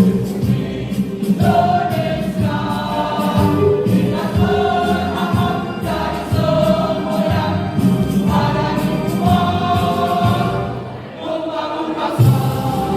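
A school choir singing, with notes held about a second each, phrase after phrase.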